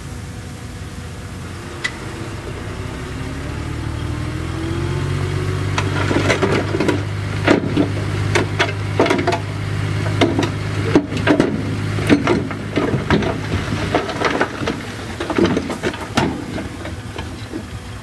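Caterpillar D6D bulldozer's diesel engine running and rising in pitch as it takes load. From about six seconds in, repeated metallic clanks and rattles break in over the engine.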